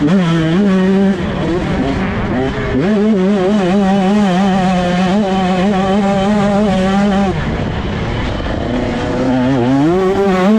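KTM 125 SX two-stroke motocross engine revving hard under throttle, its pitch wavering as the throttle is worked. It drops off briefly about a second in, holds high and steady for several seconds, falls away about seven seconds in, then climbs again near the end.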